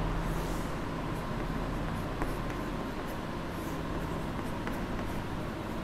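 Faint scratching of writing in short strokes, over a steady electrical hum.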